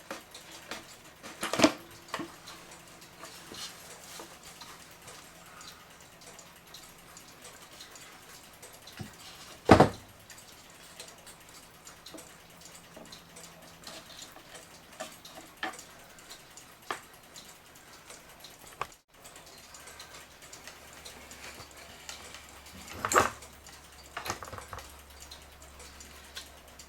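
Scattered clicks and knocks of a mantel clock case being handled and unscrewed as it is taken apart, the loudest knock about ten seconds in and a few more near the end.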